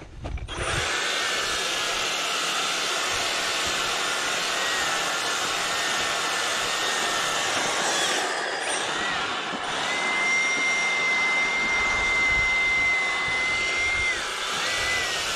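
EGO POWER+ battery power head with its bristle brush attachment starting up about half a second in, then running steadily, the spinning bristles sweeping debris along pavement. The motor's whine steps up slightly about ten seconds in and drops back near fourteen seconds.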